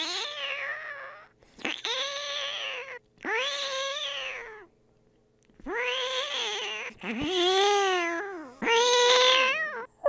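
A person imitating a cat with their mouth: six drawn-out meows, each rising and then falling in pitch, with a short pause about halfway through.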